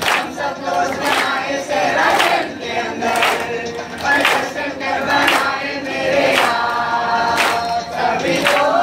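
A mixed group of voices singing together in chorus, with hands clapping along in a steady beat.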